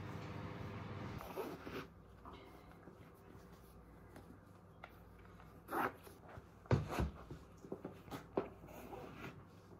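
Laces of Brooks Adrenaline GTS 19 running shoes being pulled through the eyelets and tied: short swishing zips and clicks, with a couple of soft thumps about seven seconds in.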